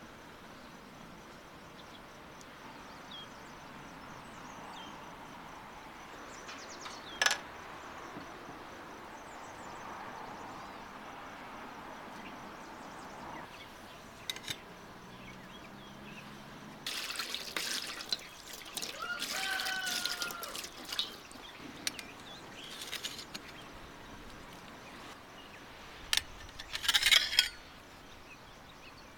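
Liquid pouring and trickling into a steel bowl as a faint steady hiss. Later come scattered clicks and short rustling handling noises, the loudest near the end.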